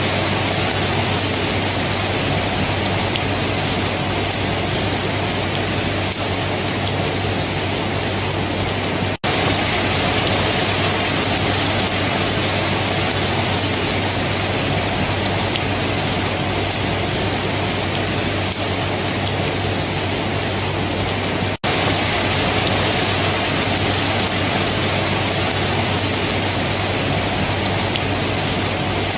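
Steady heavy rain falling, an even hiss with no change in strength. It cuts out for an instant twice, at the seams where the recording loops.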